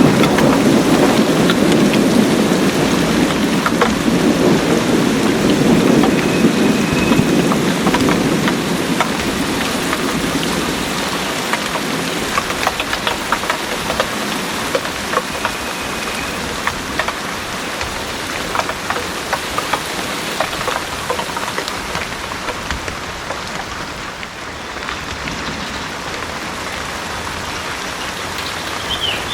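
Heavy rain falling steadily, with many distinct drops ticking close by. A low rumble of thunder at the start fades away over the first several seconds.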